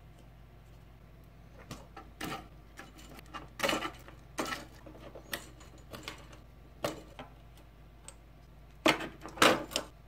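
Wire connectors being pulled out of the sockets of a Smoothieboard 3D-printer control board: irregular plastic clicks and wire rustling, beginning a couple of seconds in, with the loudest cluster near the end.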